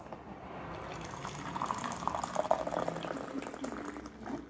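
Hot coffee poured from a thermos flask into a mug: a splashing stream that builds, is loudest around the middle and tapers off near the end.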